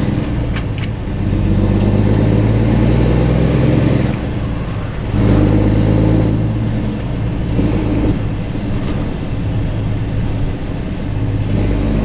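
Kenworth W900 semi-truck's diesel engine running under way, heard from the truck, with a steady low engine note. The note dips about four seconds in and picks up again a second later, and eases off again near eight seconds; a faint high whine rises and falls in the first half.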